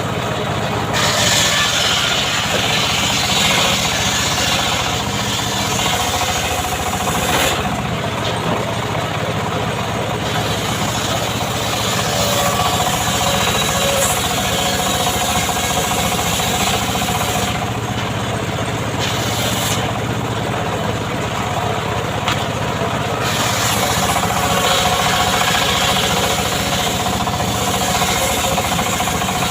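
Homemade chainsaw's small engine running without a break, with long stretches where the sound turns brighter and noisier, as when the chain is cutting into mahogany wood, between easier stretches.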